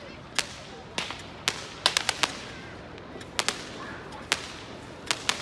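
Scattered sharp bangs of firecrackers and fireworks going off, about a dozen at irregular intervals, some in quick clusters of two or three, each trailing a short echo.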